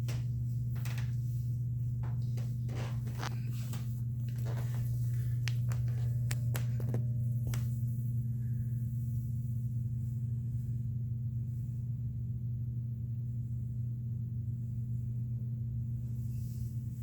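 A steady low hum, with a run of light clicks and knocks over the first eight seconds or so.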